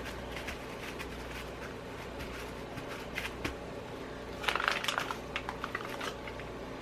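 Soft handling noises of hands pressing and flattening modelling putty on a work surface: light taps and rustling, busiest about four and a half to five seconds in, over a steady low hum.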